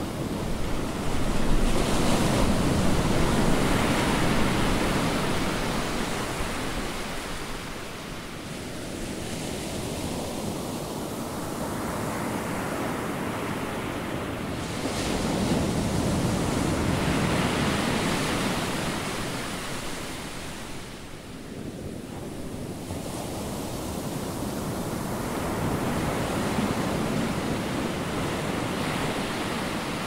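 Ocean surf breaking and washing up a sandy beach, a steady rushing that swells and ebbs in slow surges, with some wind.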